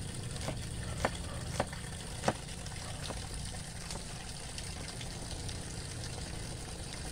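Cleaver chopping red onions on a wooden cutting board: three sharp knocks in the first two and a half seconds, then fainter, irregular cuts, over a steady low background rumble.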